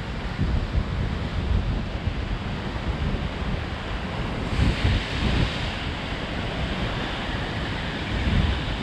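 Atlantic surf breaking and washing over the rocks at the foot of a sea cliff, mixed with wind buffeting the microphone. A louder, hissier surge comes about halfway through.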